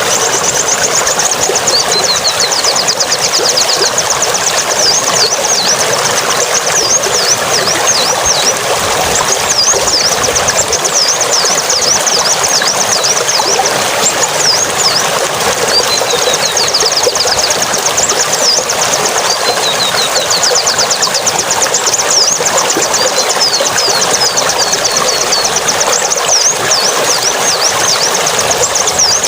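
A small songbird singing rapid, high, repeated chirps and trills over a steady rush of running water.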